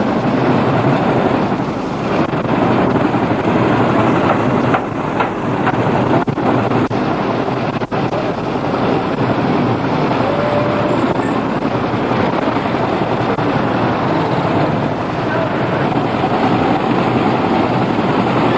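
Engines of a group of motorcycles running steadily as they ride along in a column, mixed with wind on the microphone.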